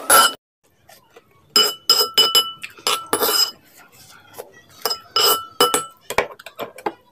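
Cutlery clinking against ringing dishware: a single strike, a second of quiet, then several quick clusters of sharp clinks, each leaving a brief ring at the same pitches.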